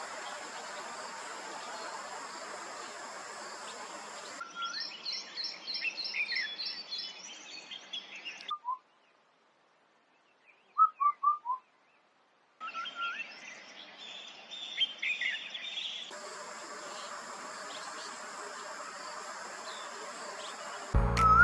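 Small songbirds chirping and calling in a few spliced clips over a steady high hiss like insects, with quick runs of repeated notes. In the middle is a nearly silent gap holding a quick run of four chirps.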